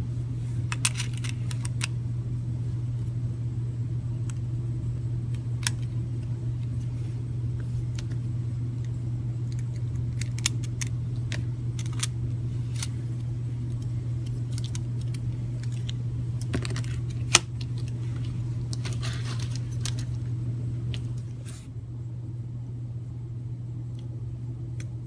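Steady low hum of a room air-conditioning unit running, with scattered light clicks and small rattles as plastic DIP sockets are fitted into the holes of a circuit board. The hum drops a little about three-quarters of the way through.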